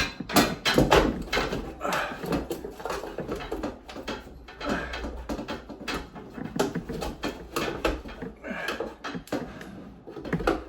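Ceiling fan housing being worked loose from the ceiling by hand: an irregular run of knocks, scrapes and rattles.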